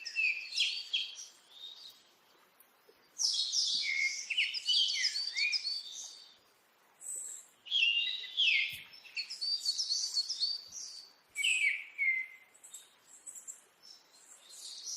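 Songbirds singing in bursts of quick, rapid chirping phrases, about four bouts with short pauses between them.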